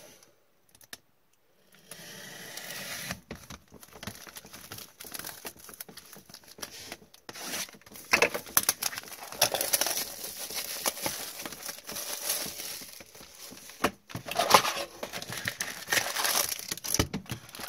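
Plastic shrink wrap crinkling and tearing as it is cut and peeled off a box of hockey trading cards, starting about two seconds in, with the cardboard box opened near the end.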